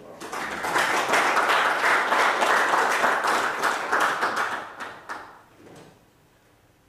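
Audience applauding: many hands clapping, building within the first second, holding, then dying away about five seconds in, with a few last single claps.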